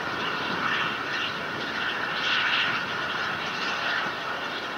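Steady, distant rushing noise of an H-IIA 202 rocket climbing under its first-stage engine and two solid rocket boosters, swelling slightly about halfway through.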